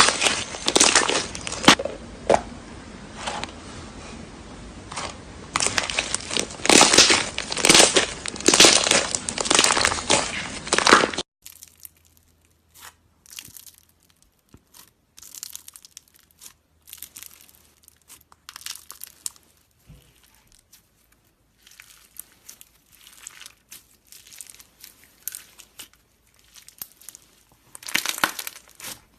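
Slime being squeezed and worked by hand: dense, rapid crackling, then after a sudden cut about eleven seconds in, quieter scattered crackles that get busier again near the end.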